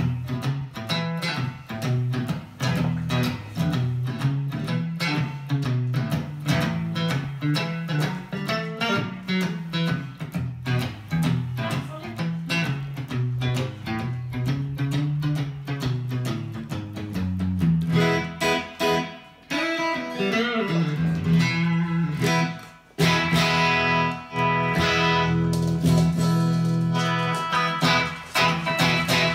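Telecaster electric guitar being played to test it after cleaning its pots and switch and restringing: a run of picked notes, with louder, fuller chords from about eighteen seconds in.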